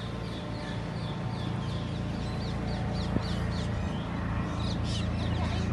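Birds calling in a quick series of short, falling chirps, more of them toward the end, over a steady low outdoor hum; a single sharp click about three seconds in.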